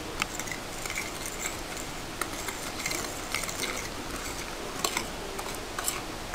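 Metal fork stirring powdered sugar into a wet mixture on a ceramic plate. Its tines scrape and click against the plate in frequent irregular ticks.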